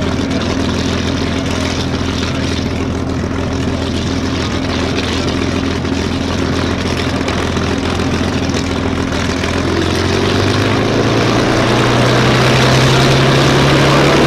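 Voodoo, a modified P-51 Mustang racer, its Rolls-Royce Merlin V12 running at a steady idle with the propeller turning. About ten seconds in, the engine note rises a little and gets slightly louder.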